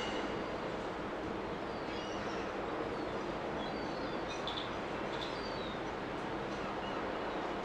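Steady rumbling harbour ambience with a few short, faint bird chirps around the middle.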